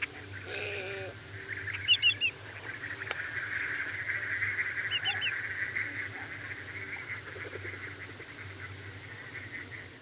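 Little blue heron giving a low, hoarse croak about half a second in, then greater yellowlegs calling twice with short, loud groups of three clear whistled notes, over a continuous busy background chatter.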